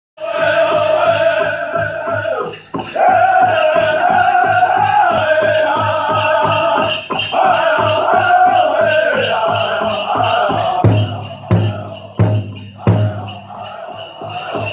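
Powwow drum group singing a chicken dance song, with voices over a steady beat on a big drum, about three strokes a second, and the dancers' bells jingling. The singing stops about ten seconds in, and a few louder, spaced drum hits follow before softer drumming carries on.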